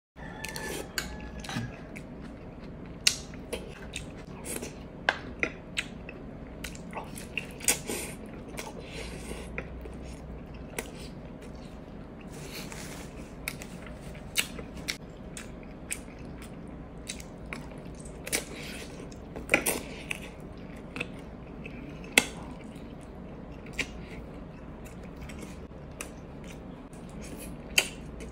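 Close-miked eating: chewing and biting, with a spoon and fork scraping and clinking against a glass dish, giving many short sharp clicks throughout. A steady low hum sits underneath.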